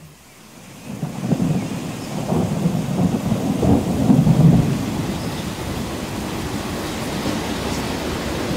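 A rumble of thunder that builds about a second in and is loudest a few seconds later, then gives way to steady rain.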